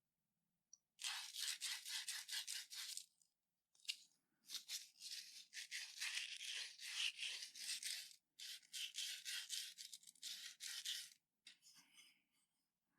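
Abrasive back-and-forth rubbing on wood, in several runs of quick strokes at about five a second, with short pauses between the runs.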